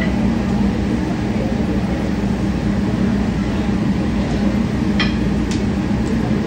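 Steady rushing noise of a restaurant's open flaming char-grill where oysters are charbroiling, with a couple of sharp metal clinks about five seconds in.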